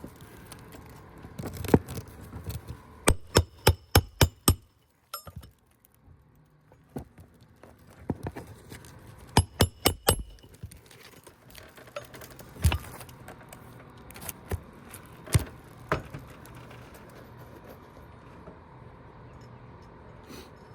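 Hammer driving a roofing nail through asphalt shingles: sharp metallic taps in two quick runs of about four to six strikes, with single taps between.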